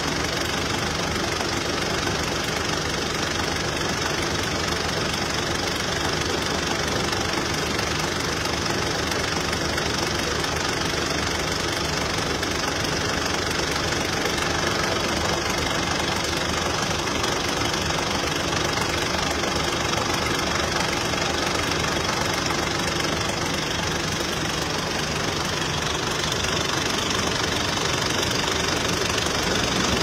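Heavy construction machinery engines running steadily at an even pitch, with no breaks or revs.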